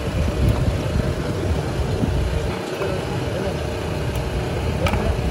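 Busy roadside street ambience: a steady low rumble of vehicle engines and traffic under indistinct voices, with a sharp clink about five seconds in.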